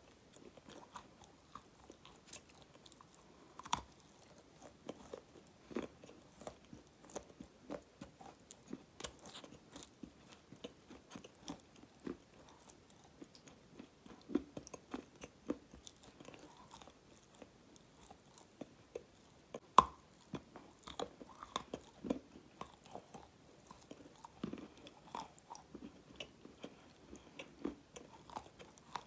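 Close-up chewing and biting of a dark grey, crumbly chunk: scattered soft crunches and clicks, with a sharper crunch about 4 seconds in and the loudest one about 20 seconds in.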